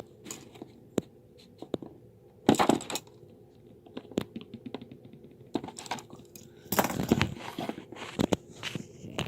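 Light taps and clicks with rustling, loudest in two longer bursts about two and a half and seven seconds in: small objects being handled.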